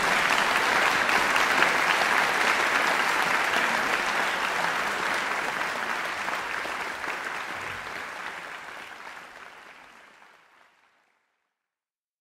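Concert audience applauding after an orchestral piece. The applause is steady at first, then fades gradually to silence about eleven seconds in.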